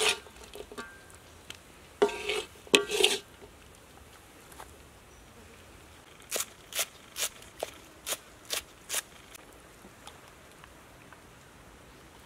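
A metal spoon scraping and knocking against a steel wok as fried soybeans and ginger are scooped out, with short ringing clanks at the start and again about two to three seconds in. After that comes a quick run of about seven light sharp clicks.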